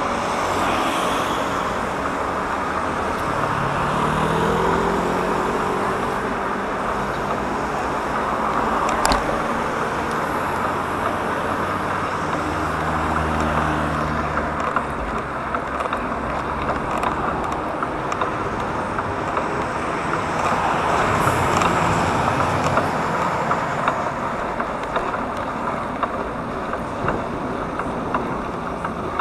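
Road traffic noise: a steady rush of tyres and passing motor vehicles, with one engine rising in pitch a few seconds in and another engine humming past near the middle.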